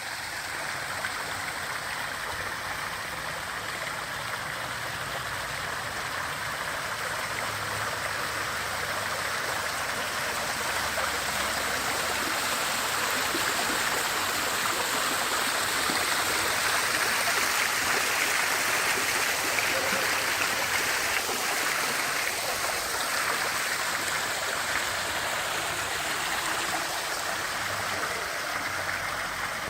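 Water pouring and splashing down an artificial waterfall: a steady rushing hiss that swells slightly in the middle.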